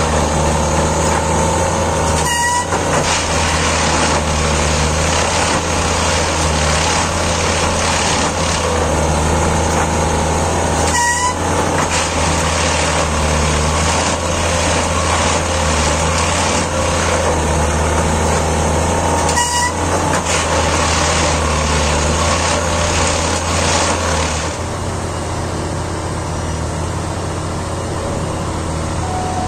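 Plasser & Theurer Unimat 08-275 track tamping machine at work: a loud, steady engine drone, broken three times by a short, sharp burst about every eight and a half seconds, as the tamping work cycles. The sound drops a little near the end.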